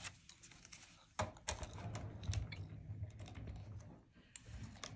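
Irregular light clicks and taps of hands handling a sketchbook and drawing supplies on a tabletop, with a soft low rumble of handling in the middle.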